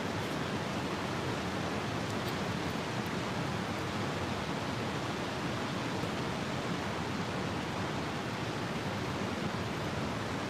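Steady rushing of flowing river water, an even hiss-like noise with nothing else standing out.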